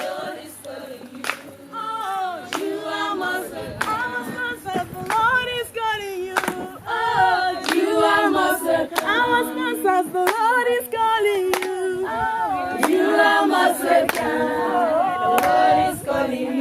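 A group of voices singing together in harmony without instruments, with a sharp percussive stroke, such as a clap, roughly once a second keeping time.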